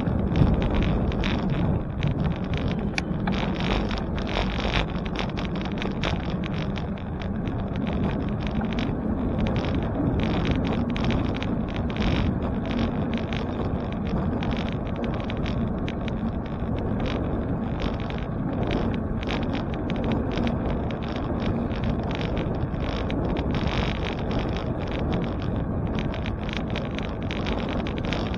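Wind buffeting the microphone of a camera on a moving bicycle, a steady crackling rush with road and tyre rumble underneath.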